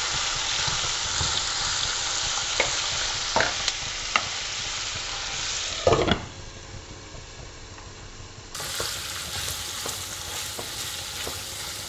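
Pork with onion and green chili sizzling as it stir-fries in a non-stick wok, with the scrape and tap of a silicone spatula stirring. About six seconds in a glass lid knocks against the pan and the sizzling goes quieter, then it sizzles louder again with more stirring.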